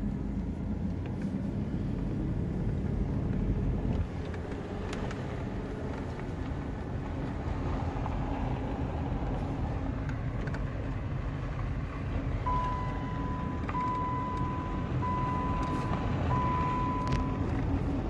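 Car driving on a gravel road, heard from inside the cabin: a steady rumble of engine and tyres. About twelve seconds in, a steady high beep starts and lasts about five seconds, broken three times.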